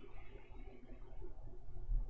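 Faint handling sounds of a screwdriver driving a power-supply mounting screw into a steel PC case, over a low steady hum.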